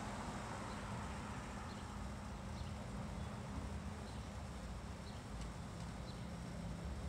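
Steady outdoor background noise with a low hum, and a few faint, short high chirps scattered through it.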